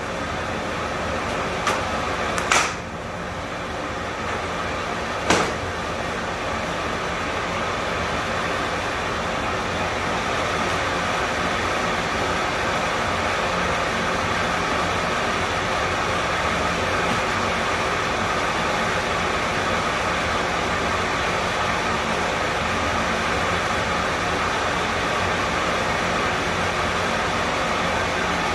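A machine running steadily, with a few sharp knocks in the first few seconds.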